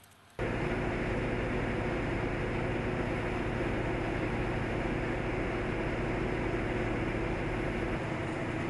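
Cotton mill machinery running, a steady mechanical drone with a constant hum, starting abruptly just under half a second in.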